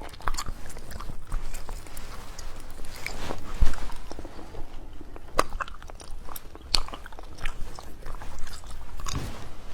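Close-miked chewing and biting of a burger, with scattered small crunching clicks and a louder bite a few seconds in.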